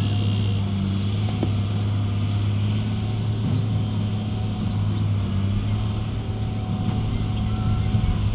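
An engine running steadily at an even speed, a low, unchanging drone.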